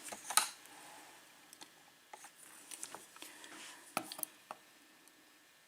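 Faint small clicks and light scraping as tiny brass lock pins are handled and set down on a work surface, with a sharper click about four seconds in.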